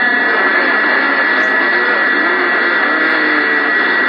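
CB radio receiver static on the 27 MHz band between long-distance skip transmissions: a steady hiss with a constant two-tone heterodyne whistle and faint warbling, garbled sounds underneath.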